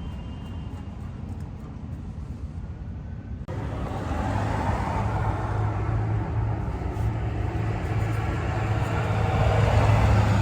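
Steady vehicle and traffic noise, stepping up abruptly about a third of the way in, after which a steady low engine hum runs on.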